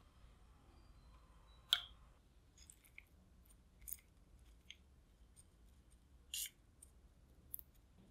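Metal ladle and wooden chopsticks clicking and tapping against a glass bowl while scooping shredded potato: a handful of separate light clicks, the sharpest about two seconds in.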